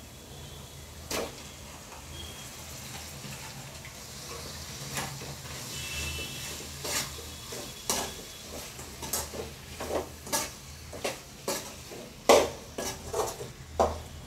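Raw prawns sizzling in hot oil and masala in a metal kadai while a steel spatula stirs them, knocking and scraping against the pan. The knocks come roughly once or twice a second from about five seconds in, with the loudest near the end.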